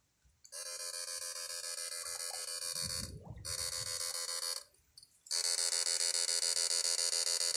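Electric-fishing shocker buzzing loudly as its probes are held in the stream, a rapidly pulsing high-pitched drone in two long bursts with a gap of under a second about five seconds in. The buzz marks the current being sent through the water to stun fish. A short low noise is heard about three seconds in.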